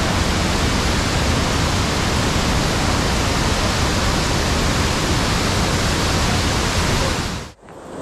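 Waterfall close by: a heavy, steady rush of falling water that cuts off suddenly near the end.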